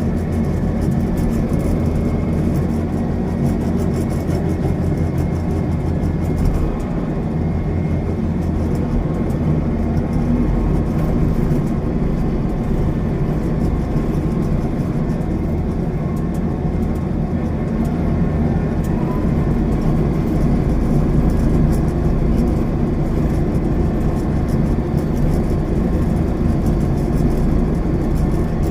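Rice combine harvester's engine running steadily under load, a low, even hum that shifts slightly about seven seconds in.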